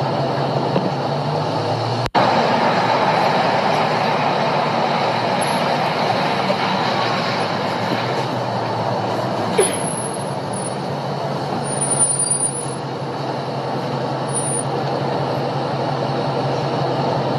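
Steady road and engine noise of a car driving on an elevated expressway, heard from inside the cabin. The sound cuts out for an instant about two seconds in, and a few faint high squeaks come through around the middle.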